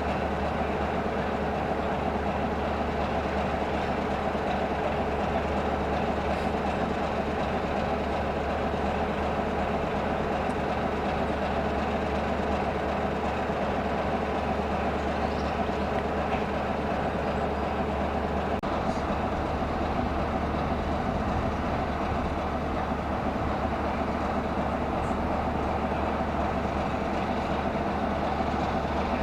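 Class 33 diesel-electric locomotive's Sulzer eight-cylinder engine running at a steady low drone, with no change in speed.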